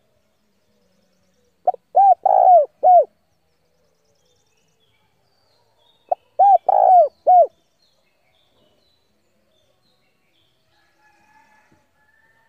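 Spotted dove cooing: two phrases of its song, each a short note followed by three longer rising-and-falling coos, about four seconds apart. This is the challenging song of a lure dove, used to draw wild males in to fight. Faint chirps from another bird come near the end.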